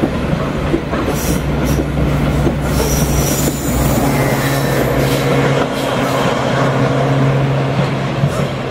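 Diesel passenger train running past and away along the track: wheels rumbling over the rails with a few brief high squeals, over a steady low engine drone that fades out near the end.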